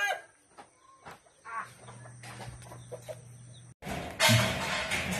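Chickens in a yard: the tail of a rooster's crow at the very start, then faint clucking and small scattered sounds over a low steady hum. About four seconds in, the sound jumps to a louder steady noise.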